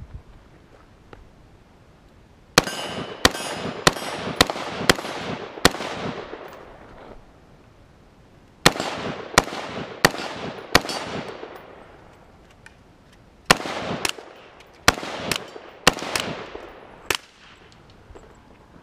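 Gunshots fired in three quick strings, about fifteen in all, at roughly half-second to one-second intervals. Each shot is followed by a long echo rolling off the range.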